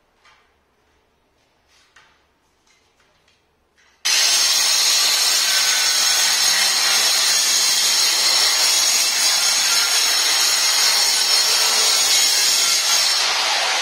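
Handheld electric marble cutter with a diamond blade dry-cutting a granite slab: a loud, steady, high-pitched grinding whine that starts abruptly about four seconds in, after a few light handling knocks, and begins to wind down near the end.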